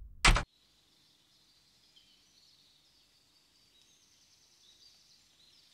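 A short, loud hit about a third of a second in, cutting off sharply, used as a sound effect at a scene cut. After it, faint outdoor ambience of birds and insects chirping high and steadily.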